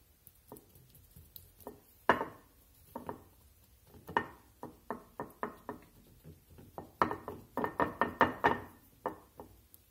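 Hands pressing and patting a cube steak into seasoned flour in a ceramic bowl: a string of thumps, scattered at first, then a quick run of several a second near the end.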